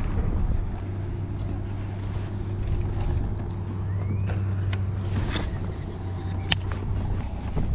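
A steady low engine hum runs under the scene and fades out near the end. A few short sharp clicks and ticks come in the second half.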